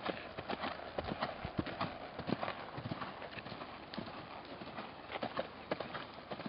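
A young horse's hooves striking the ground in a quick, uneven run of hoofbeats, several a second.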